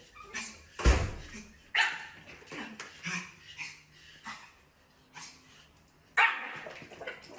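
A small puppy barking in a string of short, sharp barks, about one every half second to a second, the loudest about a second in and about six seconds in.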